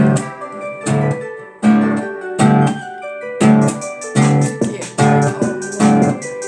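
Instrumental music: a guitar playing a run of plucked or strummed chords, each one struck sharply and left to ring.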